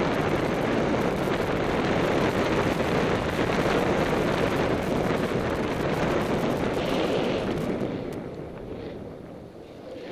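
Wind noise on a helmet-mounted camera together with a snowboard scraping over packed snow during a downhill run. The noise holds steady, then fades over the last few seconds as the board slows to a stop.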